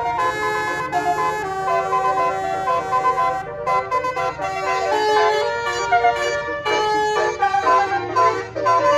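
Telolet basuri musical bus horn playing a tune: a run of held horn notes that step from one pitch to the next, often sounding two tones together.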